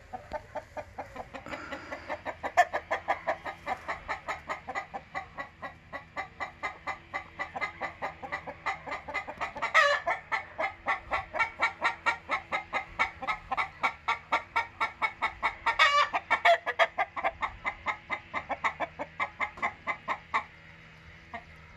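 Chickens clucking in a fast, even run of short notes, about four or five a second, with a louder rising call twice. The clucking stops shortly before the end.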